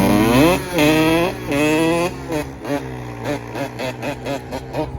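Dirt bike engine revving: three long climbs in pitch in the first two seconds, then a run of short, quick throttle blips, several a second.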